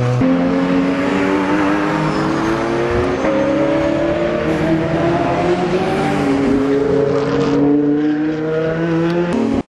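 Racing cars at speed, two or more engines heard at once, their notes rising and falling in pitch as the cars pass. The sound cuts off abruptly near the end.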